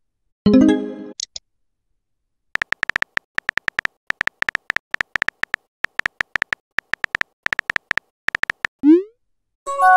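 Phone messaging-app sound effects. A short chime of a message arriving comes about half a second in. Then a run of keyboard tap clicks, about six a second, plays while a message is typed out. A quick rising swoosh of a message being sent follows near the end, with a second arrival chime just after it.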